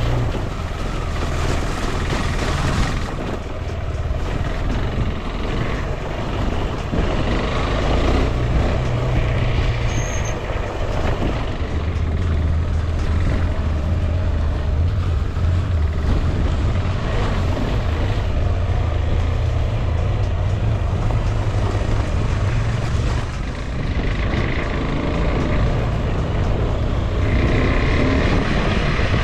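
Adventure motorcycle engine running steadily under way, with wind and road noise over it.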